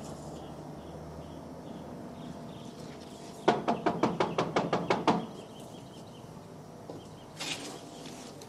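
Rapid knocking on a wooden door: a quick run of about a dozen sharp knocks lasting under two seconds, a few seconds in. A short scraping sound follows near the end.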